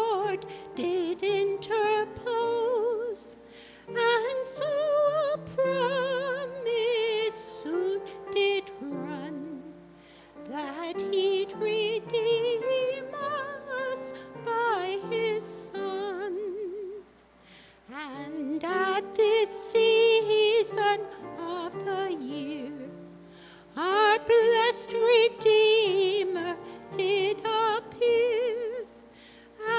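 A slow carol sung solo with vibrato over a soft, steady accompaniment, in phrases of a few seconds broken by short pauses.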